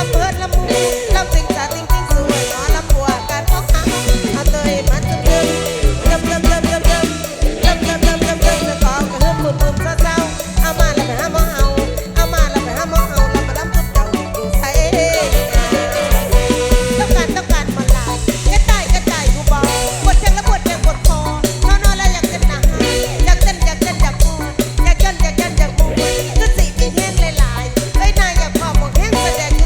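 Live mor lam band playing an upbeat toei dance passage, with a heavy, steady bass-and-drum beat under a wavering melody.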